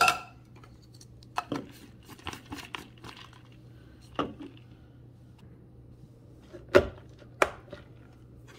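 Light plastic clicks and knocks as a personal blender's blade assembly is screwed onto its plastic travel cup of ice and water, with two louder knocks near the end as the cup is set onto the motor base.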